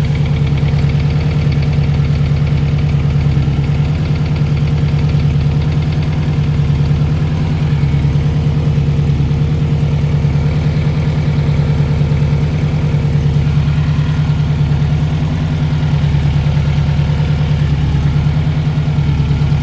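Subaru Impreza GC8's turbocharged EJ20 flat-four engine idling steadily, its exhaust leaking at the up-pipe gasket near the turbo.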